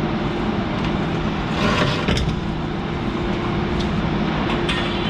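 Steady drone of industrial plant machinery, with several steady low hum tones under a noisy wash. A short rustle about two seconds in.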